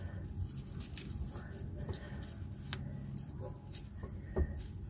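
Gloved hands handling a small metal band clip around a rubber CV boot: faint rustling and light clicks of the clip, with one sharper click a little under three seconds in and a soft knock near the end.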